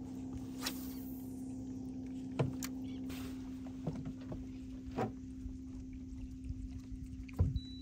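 Small fibreglass fishing boat on calm water: a steady low motor hum runs throughout, with water lapping at the hull and a few short knocks, the loudest near the end.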